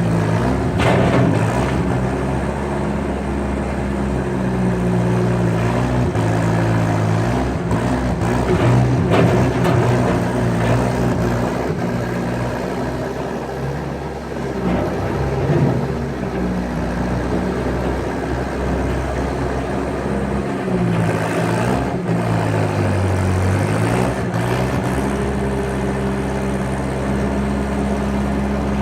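Skid steer engine running steadily with its pitch rising and falling as it works, dipping lower for a few seconds about two-thirds through and then recovering, with a few brief knocks.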